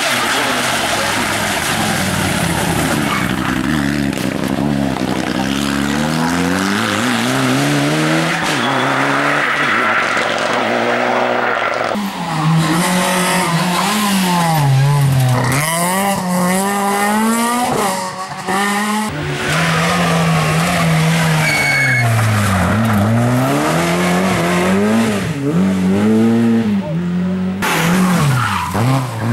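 Rally car engines at full effort on a special stage, pitch climbing and dropping over and over with gear changes and lifts for corners. Several passes follow one another with abrupt cuts about 12, 19 and 27 seconds in.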